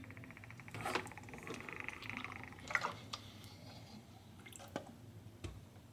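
Water dripping from a plastic tube into a cup of water after a solenoid valve has shut off the flow, with a few sharp clicks as the tube is handled and lifted. A faint buzz stops about halfway through.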